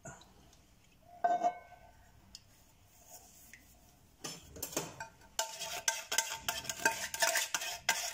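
Metal cans of coconut milk knocking, tapping and scraping against the rim of a nonstick pot while being emptied into it. One knock with a short ring comes about a second in, then from about four seconds on a quick, busy run of metallic taps and scrapes.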